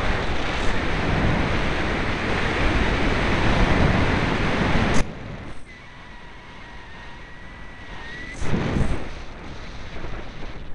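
Airflow rushing over the microphone of a camera mounted on a Parkzone Radian RC glider in flight. The rushing is loud for about five seconds, then drops suddenly to a quieter hiss. A thin steady whine runs through the quieter stretch for a couple of seconds, and a brief gust follows.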